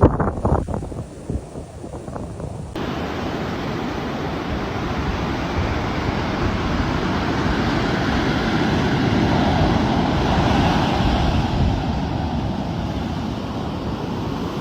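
Gusts of wind buffeting the microphone, then, from an abrupt change about three seconds in, a steady rushing noise that swells slightly toward the middle.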